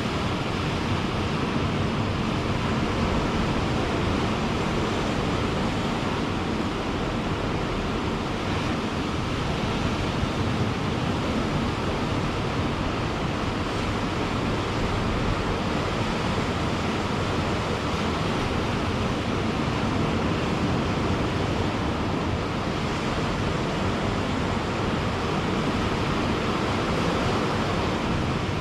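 Ocean surf: waves washing onto a beach in a steady, continuous rush.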